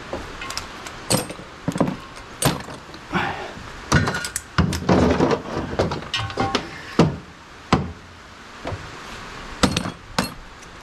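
Loose steel screws and bolts clicking and clinking onto a pickup magnet as it is scraped over the ribbed plastic liner of a vehicle tray, with irregular sharp knocks of metal against metal and a longer scraping stretch about halfway through.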